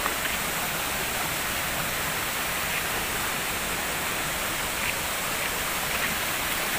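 Steady rush of a waterfall and the rocky stream below it: an even hiss of falling water, with a few faint ticks.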